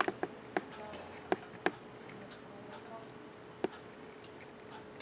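A serving ladle clicking and clinking against the pressure cooker's pot and a plate as sauce is spooned out: several sharp taps in the first two seconds and one more a little later, over a steady faint high-pitched whine.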